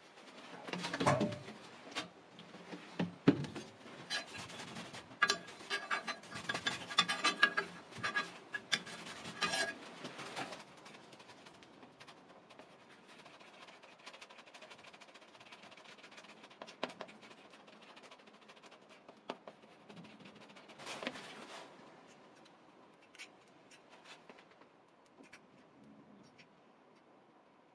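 A cloth rag rubbing and wiping a steel knife blank on a metal workbench, with knocks and clinks of the blade, for about the first ten seconds. After that, much quieter scraping and a few small clicks as glue is mixed on cardboard and spread on the knife's tang.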